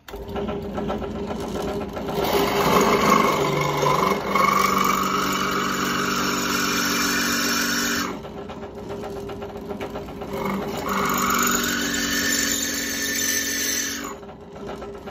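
Bench drill press running, its 7 mm bit drilling through the steel tang of a machete in two bursts: one from about two seconds in to eight, another from about eleven seconds in to fourteen, each with a high whine as the bit cuts. The motor hums on between the bursts, and the cutting is kept short so the bit does not overheat.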